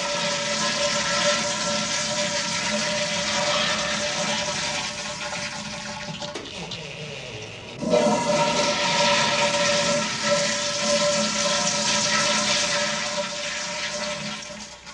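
Toilet flushing, a loud rush of water with a steady whistle over it; a second flush starts sharply about eight seconds in and runs until near the end.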